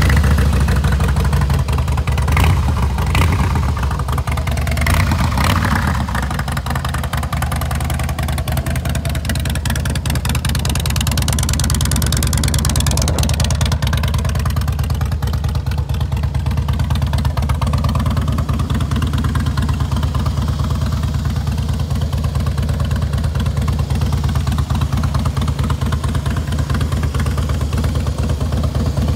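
2006 Harley-Davidson Softail Deluxe's air-cooled 96 cubic inch V-twin running through a Vance & Hines exhaust, freshly started. It is louder and unsteady for the first five seconds or so, then settles into a steady idle.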